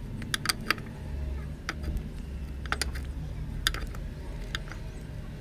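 Steel spanner clicking against the clutch-cover nut of an old cast-iron Royal Enfield Bullet as the nut is tightened: short, sharp, irregular metal clicks over a low steady hum.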